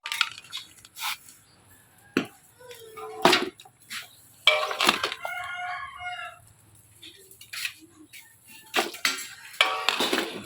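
A chicken crowing once, a drawn-out call about halfway through, among irregular sharp knocks and cracks.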